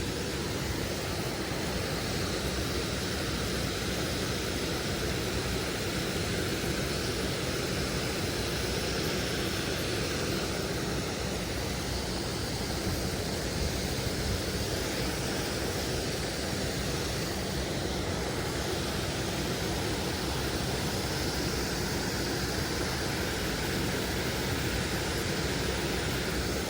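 Steady rushing noise of fast-flowing floodwater pouring through and out of a drainage pipe.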